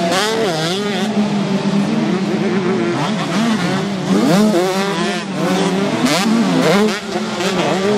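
Several 125cc two-stroke motocross bikes revving hard as they go over a jump one after another. The engine pitch rises and falls with each bike, over a steady drone from others on the track.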